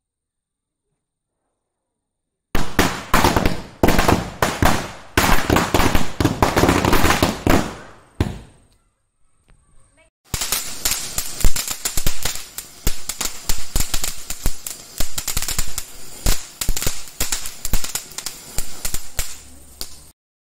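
Firecrackers going off in quick crackling runs of sharp bangs. They start about two and a half seconds in, break off for about two seconds near the middle, then crackle on again until just before the end.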